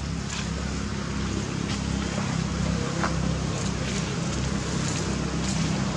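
Steady low motor rumble, like a vehicle engine running, with a few faint ticks and rustles over it.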